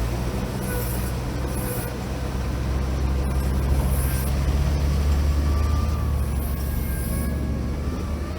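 Off-road vehicle engine running with a steady low drone, with several short bursts of high hiss over it.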